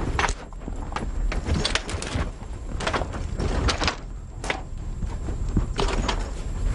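Donkey hooves and people's footsteps scuffing and knocking irregularly on dry ground and brush, over a low steady rumble.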